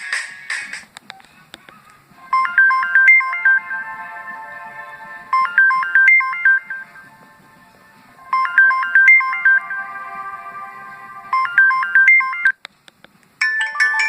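LG 237C phone playing one of its built-in ringtones: a short electronic melody of quick notes, played twice with a brief gap between. Near the end a different ringtone begins.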